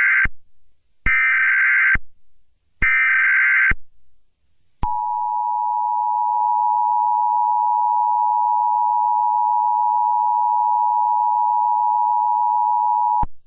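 Emergency Alert System tones breaking into a radio broadcast. First come the screechy SAME data bursts, each about a second long: the end of one, then two more. Then the steady two-tone attention signal runs for about eight seconds and cuts off sharply near the end, announcing a shelter-in-place warning.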